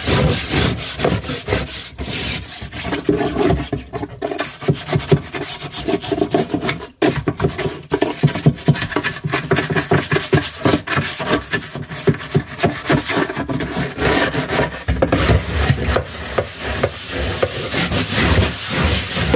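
Stiff plastic hand scrub brush scrubbed rapidly back and forth over a rust-stained locker floor: a continuous rasping rub, with a brief pause about seven seconds in.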